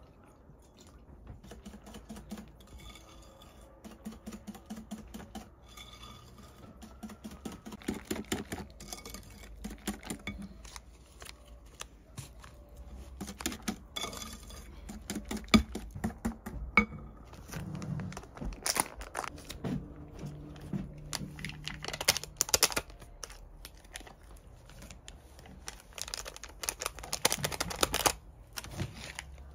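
Wire whisk beating batter in a glass bowl, its wires clicking fast and steadily against the glass, in louder and softer spells. Near the end a small paper sachet is torn open.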